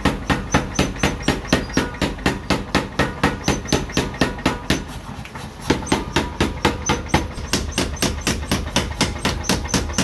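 A 15 kg power forging hammer striking in a fast, even rhythm, about three to four blows a second. It pauses briefly about halfway through, then the blows resume.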